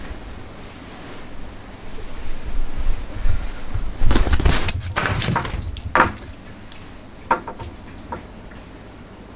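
Bedding rustling with soft thumps as a Boston terrier gets down off the bed, loudest about four to six seconds in. A few light clicks follow.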